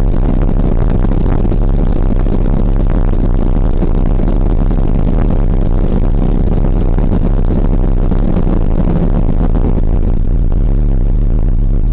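Motorcycle engine running steadily at cruising speed on the open road, under a heavy rush of wind on the microphone.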